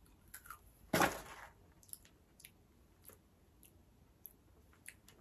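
A person biting into and chewing a small crisp coated wheat puff. There is one sharper crunch about a second in, then faint crunchy clicks of chewing.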